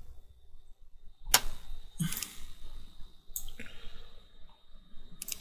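A few separate sharp clicks of a computer mouse, spaced about a second apart, as windows are clicked and dragged on a PC.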